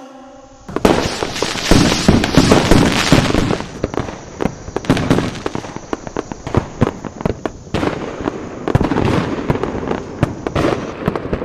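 Fireworks going off: a dense crackling barrage starts about a second in, then thins to scattered bangs and pops. A thin, steady, high whistle runs under the later bangs.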